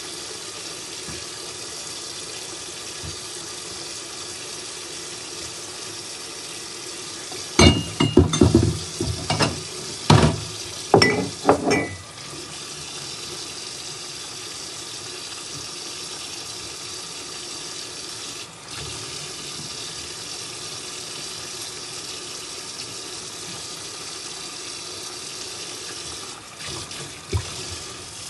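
Kitchen tap running steadily into a sink. A burst of loud clattering knocks comes about eight seconds in and lasts a few seconds, with one more knock near the end.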